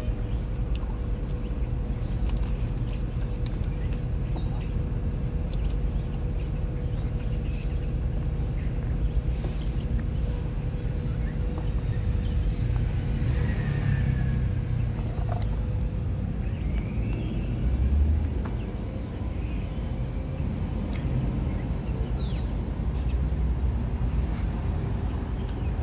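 A steady low rumble that swells about eighteen seconds in, with small birds chirping briefly and high now and then.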